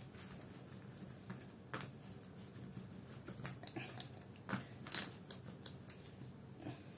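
Faint scattered taps, clicks and rubbing as modelling clay is pressed into a plastic shape mould and rolled flat with a plastic roller, the sharpest clicks near five seconds in, over a steady low hum.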